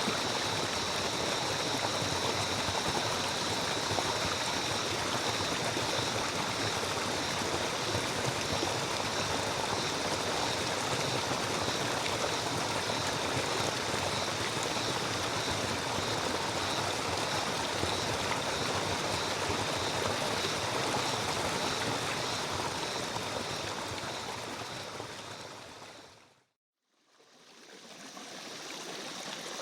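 Stream water running steadily, with a faint high steady tone over it. Near the end it fades out to silence and then fades back in.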